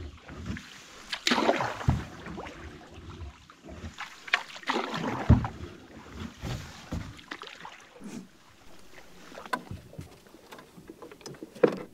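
Canoe paddling: irregular paddle strokes swishing through calm water, with a few sharp knocks against the canoe.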